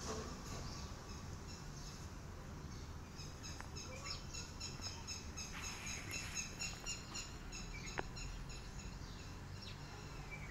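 A bird chirping in a quick, even series of high notes, about three a second, over a steady low outdoor rumble, with a single sharp click about eight seconds in.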